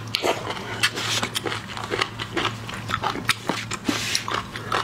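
Close-miked biting and wet chewing of soft scallop meat: many short, sharp smacks and clicks from the mouth, over a low steady hum.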